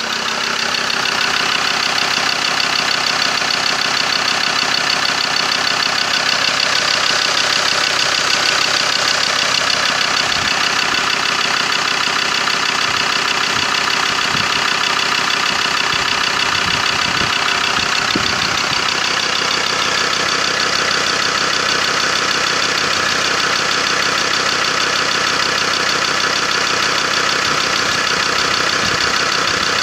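Mazda BT-50's 3.2-litre five-cylinder turbo-diesel engine idling steadily, heard close up with the bonnet open.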